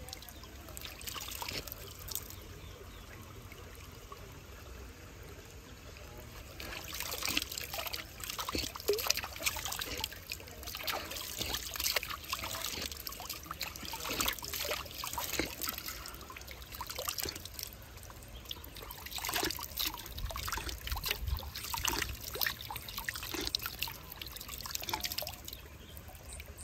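Water trickling in a small stream, with irregular splashes that get louder about seven seconds in.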